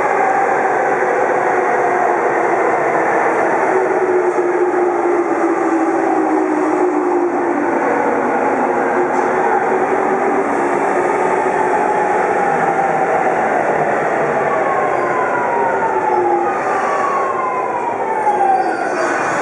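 Rinkai Line 70-000 series electric train arriving at the platform and slowing, with wheels running on the rails. Its whine falls slowly in pitch as it brakes, with faster falling tones in the last few seconds.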